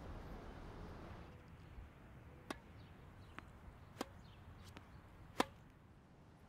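Tennis ball being hit on a court: a run of about five sharp pops over three seconds, the last the loudest. A low rumble fades out in the first second.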